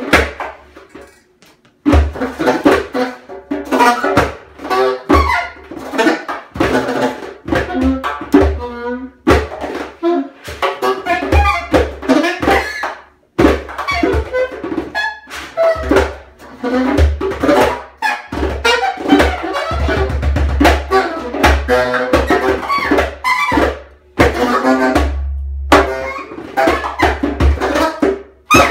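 Free-improvised duet of alto saxophone and hand drum: short, broken saxophone phrases over quick strikes on the drum, with deeper drum strokes in places. Both stop briefly about a second in.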